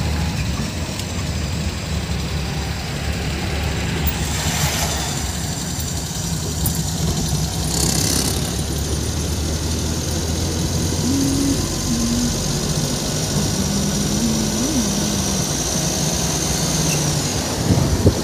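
Steady engine and road noise of a car driving, heard from inside the cabin, with a few passing swells of traffic and a short sharp knock near the end.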